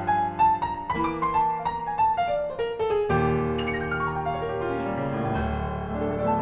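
Background piano music: a quick line of single notes over held low notes, stepping down in a falling run to a new low chord about three seconds in, which rings on.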